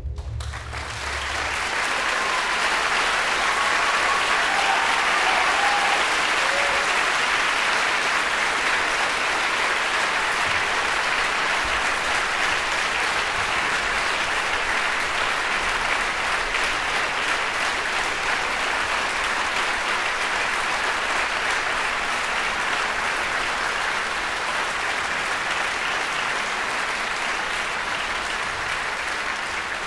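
Theatre audience applauding, building over the first few seconds into steady, sustained clapping, as the last low notes of the music die away about a second in.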